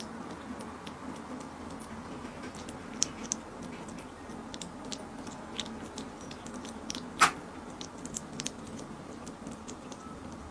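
Kitten eating wet food from a plate, close up: irregular wet licking and chewing clicks over a steady hiss, with one louder click about seven seconds in.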